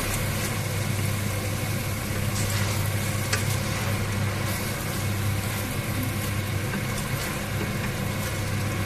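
Rice and chicken sizzling as they sauté in a stainless steel pot, stirred with a wooden spatula that scrapes now and then, over a steady low hum.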